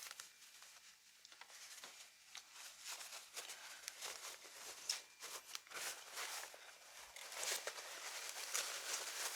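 Faint, irregular rustling and crinkling of shipping packaging being handled and pulled apart while a snake is unpacked from its box, busier in the second half.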